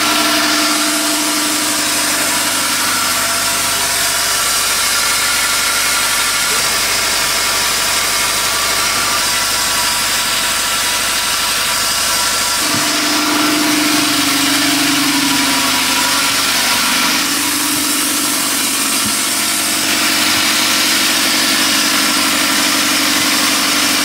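A yacht's inboard diesel engine running steadily, heard close up from its open engine compartment.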